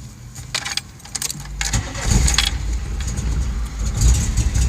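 Volkswagen Jetta being started: ignition keys click and jingle, then the engine cranks and catches about two seconds in and runs at a rough, uneven idle. The rough running is a sign of a misfire, with an exhaust leak adding to the noise.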